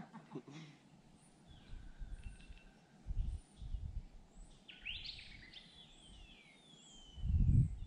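Several wild birds chirping and calling, one call sliding down in pitch about five seconds in. Low rumbles come and go beneath them, the loudest just before the end.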